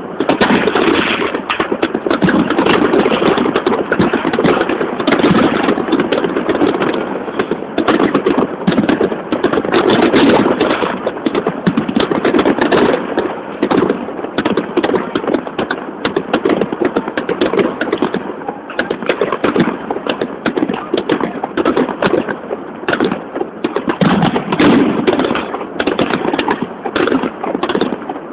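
Fireworks crackling and popping in a dense, rapid stream of overlapping small bangs.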